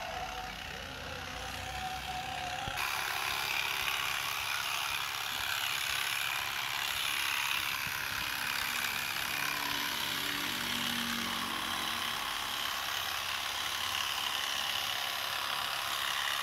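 Corded electric animal hair clippers buzzing steadily as they shear a donkey's coat; the buzz turns sharper and a little louder about three seconds in.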